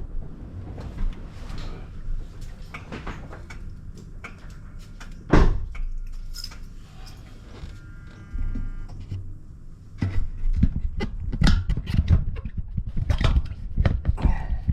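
Mitsubishi Pajero's suspension knocking and clunking over a low road rumble, the knocks coming irregularly and more densely in the last few seconds, with one louder bang about five seconds in.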